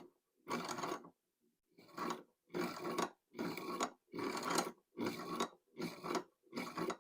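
Hand-cranked piston ring filer grinding a ring end with about eight rasping turns, roughly one a second, filing the new ring's end gap wider to the clearance it needs.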